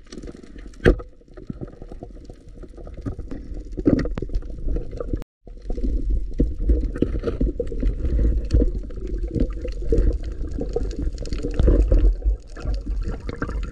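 Water sloshing and bubbling, muffled and low, with a sharp knock about a second in and a brief dropout about five seconds in.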